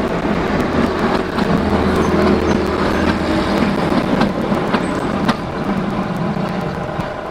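OO gauge model train running across the layout, a steady rumble with scattered clicks, easing a little after about five seconds.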